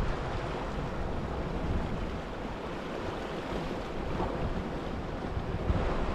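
Sea waves washing and surging against rocks, with some wind on the microphone.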